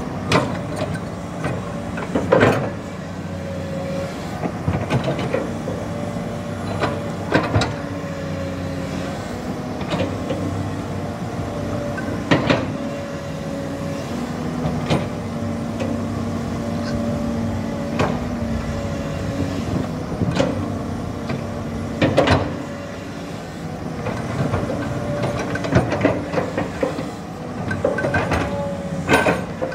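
Excavator running steadily while it levels fill soil, with its engine tone shifting a little under load and sharp knocks every few seconds.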